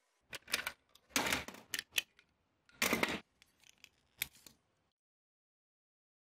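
Small plastic and metal parts of a die-cast toy truck handled and taken apart: a run of short clicks, snaps and scraping rustles in separate bursts, stopping about five seconds in.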